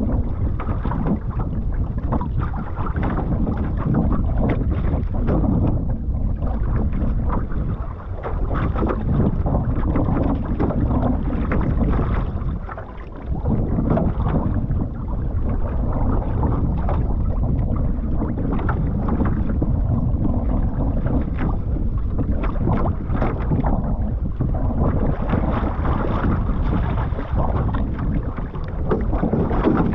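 Wind buffeting the microphone over water sloshing and splashing against the hull of an outrigger canoe on choppy sea. There is a continuous low rumble, easing briefly about halfway.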